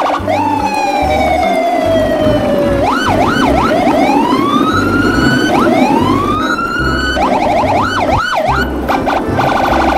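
Electronic emergency-vehicle siren sounds: a long falling wail, then quick up-and-down yelps and rising sweeps, ending on a fast pulsing tone. Underneath run a steady low rumble and a thumping low beat.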